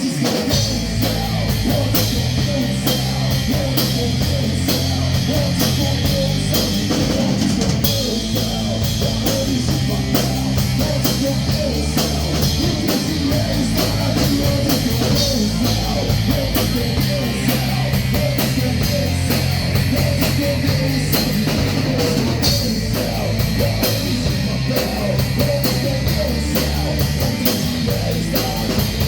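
A hard rock band playing live, with electric guitar, bass and a driving drum kit.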